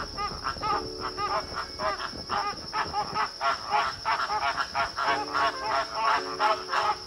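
A large flock of American flamingos calling, many short honking calls overlapping in a continuous chatter, with a few deeper, longer notes mixed in.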